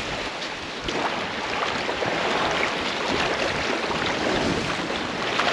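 Small waves of shallow surf washing in and out over the sand, a steady hiss of moving water that swells a little about a second in.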